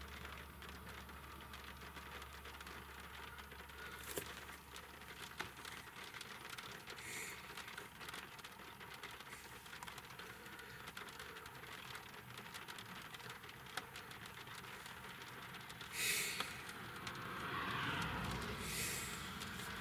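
Light rain ticking on a car's roof and windshield, heard faintly from inside the closed car. A short rustle comes about sixteen seconds in, and the sound grows louder near the end.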